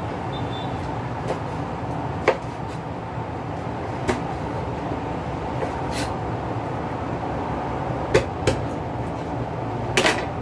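Scattered knocks and clicks of a knife and hands working on a cutting board while a chicken is cut up and skinned: about six sharp taps, the last near the end a little longer, over a steady background hum.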